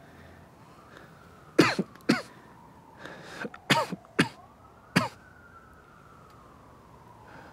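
A person coughing: five short, harsh coughs, in two pairs and then a single one. A faint tone slowly rises and falls in the background.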